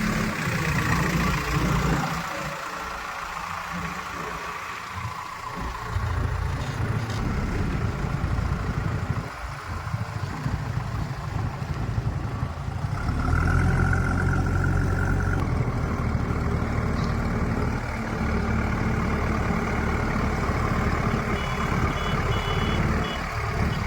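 Heavy diesel engine running, getting louder about six seconds in and again past the middle, as if taking load. Midway there is a steady tone of about two seconds, and near the end a quick run of beeps.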